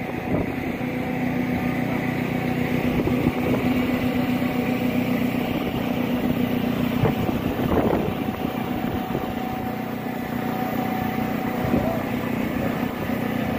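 Large engine running steadily at constant speed, a low hum with a higher held tone that drops out near the end; faint voices now and then.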